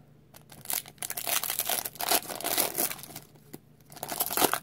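Foil wrapper of a Pokémon trading card booster pack being torn open and crinkled by hand, in irregular rustling bursts starting about a second in, with a short pause about three seconds in.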